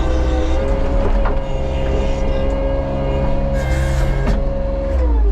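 Bobcat T77 compact track loader's diesel engine running steadily with a high whine over a low rumble, its pitch dropping near the end as the throttle comes down while the machine is parked.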